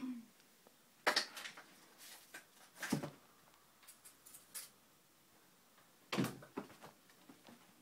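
A cat jumping and landing, then leaping at a framed standing mirror: three sharp thumps and knocks, about a second in, three seconds in and six seconds in, with a few lighter taps between them.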